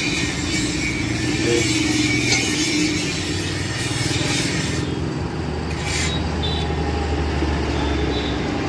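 An engine running steadily with a low hum, amid mechanical workshop noise and a few clicks.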